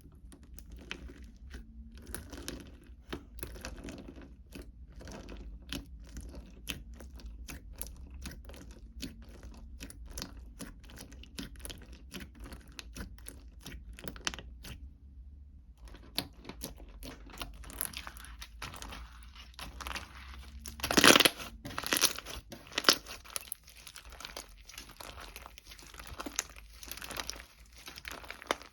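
Close, rapid crinkling and crackling of material being handled, with a short pause about halfway through and a single much louder crackle around two-thirds of the way in. A low hum sits underneath until that loud crackle.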